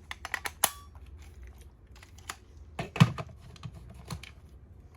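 Clicks and taps from the plastic Ultraman Orb Ring toy and its cards being handled. A quick run of small clicks comes in the first second, then scattered clicks and knocks, the loudest about three seconds in.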